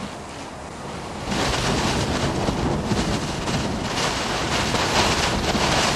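Hurricane-force wind and wind-driven rain heard from inside a vehicle: a steady rush of noise that grows louder about a second in.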